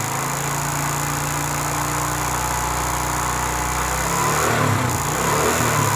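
China 70cc motorcycle's single-cylinder engine running steadily, firing on a spark that jumps an air gap between the ignition-coil lead and the spark plug terminal. About four seconds in the running turns uneven.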